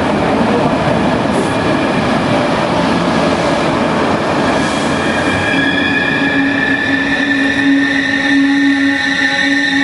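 Electric locomotive and double-deck passenger coaches running into a station platform close by, a loud rushing of wheels on rail. About halfway through the brakes start to squeal in several steady high tones as the train slows to stop.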